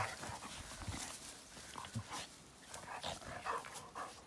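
Dogs play-fighting in grass: scattered rustling and scuffling, with a few soft dog noises.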